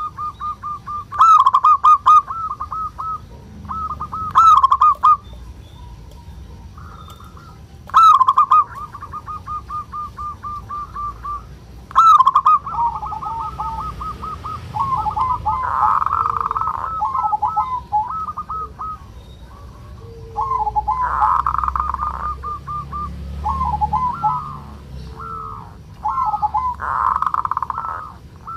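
Zebra dove (perkutut) calling over and over: runs of quick staccato cooing notes, with several harsher, rougher bursts. These are the 'kerot' churring calls of an aroused male zebra dove.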